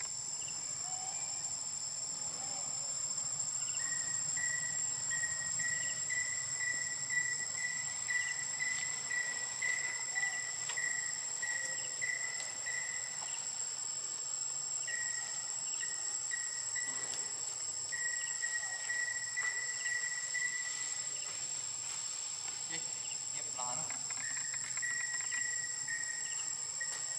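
Insects chirring in a steady, high-pitched drone, with a lower pulsing trill that comes in about four seconds in and returns in runs of several seconds.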